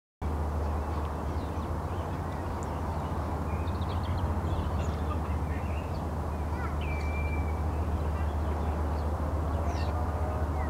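Steady low rumble of outdoor riverside ambience, with birds calling in short scattered notes over it and one longer held call about seven seconds in.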